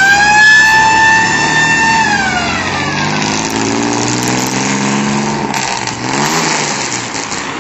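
A high siren-like tone rises, holds for about two seconds and falls away. Then an old Chevrolet pickup's engine is heard accelerating, its pitch climbing as it pulls away.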